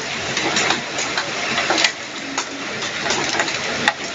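Heavy rain with hail falling: a steady rush of rain with many irregular sharp ticks and clatters of hailstones striking.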